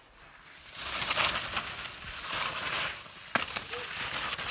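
Skis sliding and scraping over chopped-up snow: a hissing slide that swells twice, with a sharp click about three and a half seconds in.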